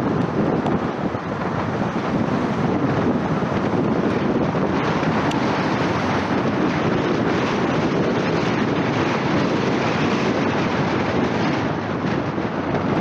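Wind rushing over the camera's microphone and the tyre and road noise of a moving car, a steady noise with no breaks.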